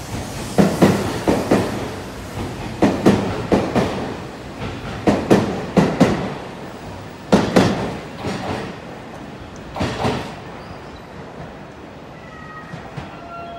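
Seibu 001 series Laview limited-express train pulling past, its wheels clicking over the rail joints in paired clicks about every two seconds, dying away after about ten seconds as the last car goes by.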